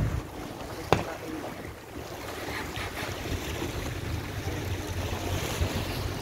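Sea waves washing against a rocky shore, with wind buffeting the microphone in a low rumble. One sharp click about a second in.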